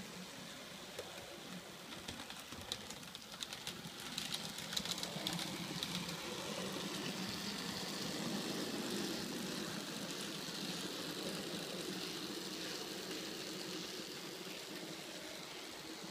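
H0-scale model diesel locomotive and tank wagons running past on model railway track: a steady motor hum with the wheels clicking and rattling over the track. It grows louder as the train approaches, is loudest about halfway through, then slowly fades as it moves away.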